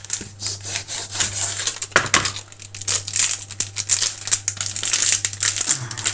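Dry cinnamon stick being broken up by hand and knife on a plastic cutting board: a rapid, irregular run of small crackles and snaps, sharpest about two seconds in.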